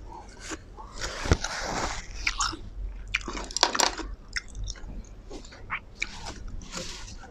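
A person eating close to the microphone: bites, crunching and chewing in irregular bursts.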